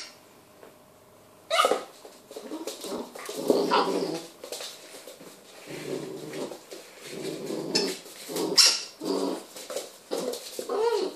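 Cane Corso puppy growling and barking as it plays with a rubber squeaky pig toy, which gives a few sharp squeaks, about a second and a half in and again near the end.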